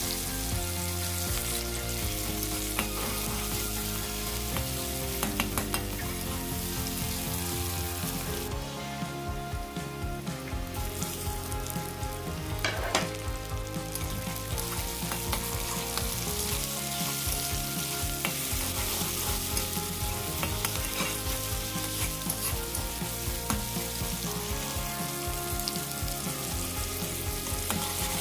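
Sliced onions, then tomatoes and green chillies, sizzling as they fry in hot oil in an aluminium wok. A flat metal spatula stirs them, with scattered clicks and scrapes against the pan.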